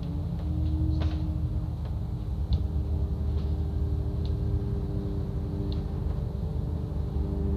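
Double-decker bus in motion, heard from inside the cabin: a steady low engine and road rumble with a humming tone that rises slightly about half a second in, and a few light ticks and rattles now and then.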